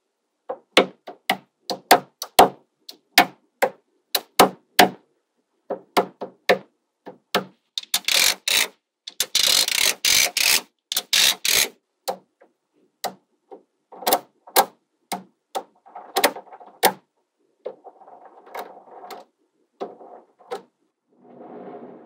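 Small magnetic balls clicking sharply as they snap together, in irregular single clicks, with a few seconds of dense continuous rattling about a third of the way in.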